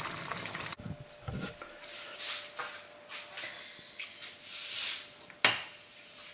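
A pan of tomato sauce with baccalà simmering on a gas hob, a steady low bubbling hiss that stops abruptly under a second in. After that come a few soft hisses and one sharp knock of kitchenware about five and a half seconds in.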